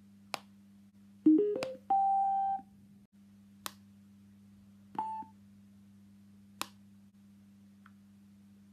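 GGSDY S111 Bluetooth speaker being switched on and put into pairing mode. A button click is followed by a quick rising three-note start-up chime and a held beep. A few more button clicks follow, one of them with a short, higher beep about five seconds in. A faint steady low hum runs underneath.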